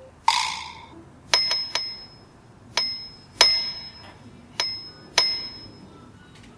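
A small high-pitched bell struck about seven times at irregular intervals, each strike ringing briefly, after a short rushing sound near the start.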